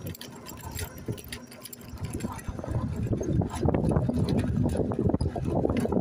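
Mobility scooter rolling over brick paving: a low rumble with irregular rattling and clicking from the wheels on the bricks. It is quieter at first and builds up about two seconds in.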